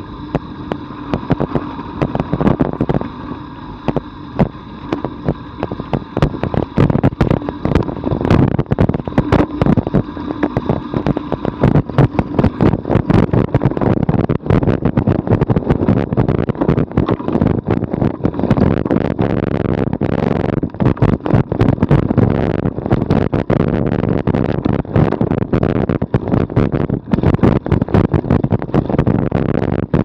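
Bicycle rolling fast down a rough dirt and gravel road: a continual rattle and knocking from the bike and its mounted action camera jolting over the ruts and stones, over a rumble of tyres on gravel. The rattling grows denser and louder after the first few seconds as the bike picks up speed.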